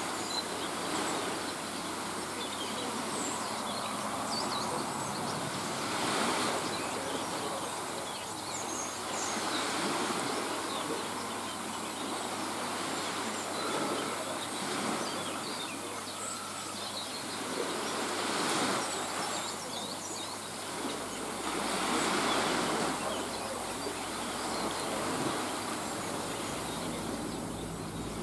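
Small waves washing in on a shore, a hiss that swells and fades every three to four seconds, with faint bird chirps.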